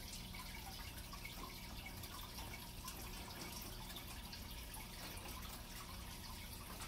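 Faint aquarium filter running: water trickling and dripping over a low steady hum.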